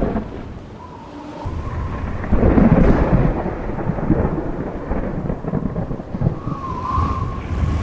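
Thunderstorm: thunder rumbling and rolling over steady rain. The loudest peal comes about two and a half seconds in.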